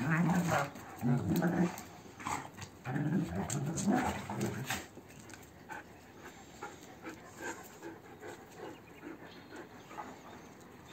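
Two Belgian Malinois play-fighting, growling in short bursts for the first five seconds or so, then quieter.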